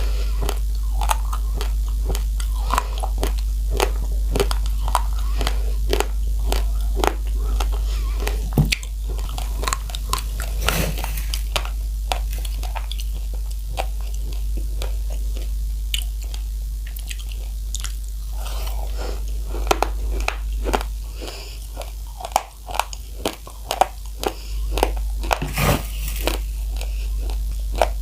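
Close-miked crunching and chewing of dry raw rice grains: a dense run of sharp cracks as the hard kernels are bitten and ground, thinning to fewer, louder cracks near the end, over a steady low hum.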